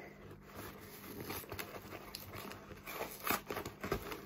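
Fingernails scratching and picking at a sealed cardboard box, trying to get it open. Faint scrapes with a few sharper taps later on.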